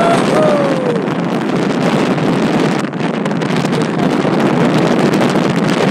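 Wind buffeting the camera's microphone in a steady rush while descending under an open BASE parachute. Near the start a short high yell is held, then falls in pitch.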